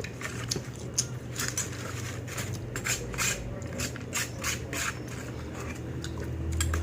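Close-up chewing of crispy breaded fried chicken: a run of short, irregular crunches and mouth sounds, several a second, over a steady low hum.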